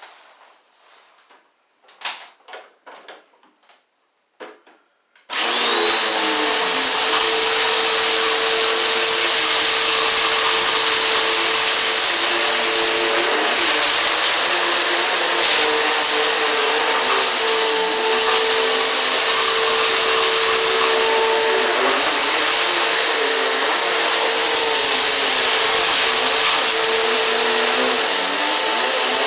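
A few faint handling clicks, then about five seconds in a Eureka PowerSpeed upright vacuum cleaner switches on abruptly and runs steadily: a rushing suction noise with a constant motor whine.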